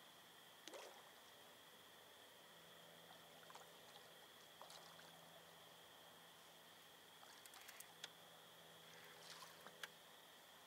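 Near silence: a faint steady high-pitched hum, with a few soft clicks and ticks scattered through.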